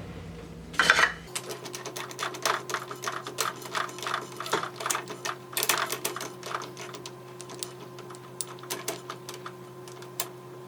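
Metal lathe running with a steady hum while it faces off the steel ground-rod handle, with a dense, irregular run of sharp metallic clicks and clatters that thins out after the middle.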